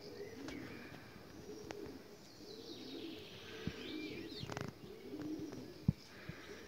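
Pigeons cooing over and over in a zoo aviary, with some higher chirping from small birds in the middle and a sharp click near the end.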